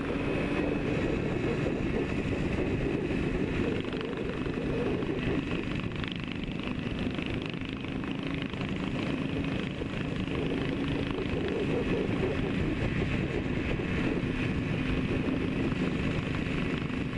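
Yamaha RD400's air-cooled two-stroke parallel-twin engine and exhaust running at a steady cruise, heard from the rider's helmet with wind rush over it.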